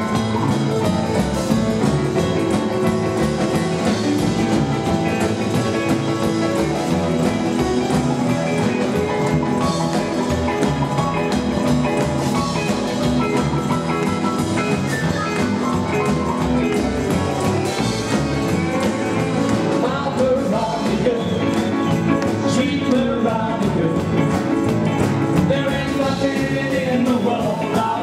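Live rockabilly band playing a 1950s-style rock 'n' roll number, with a keyboard player on a Yamaha stage piano over drums, double bass and guitar.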